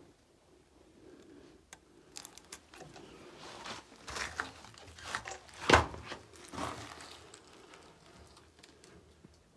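Burnt debris and rubble crunching and crackling as it is trodden on or shifted, in a run of irregular crunches and sharp knocks, the loudest a little before six seconds in.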